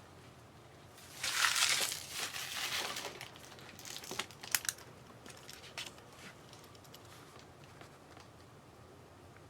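Plastic wrapper of a trading-card pack crinkling and tearing as it is opened, loudest from about a second in to three seconds. It is followed by a few sharp clicks and rustles of handling.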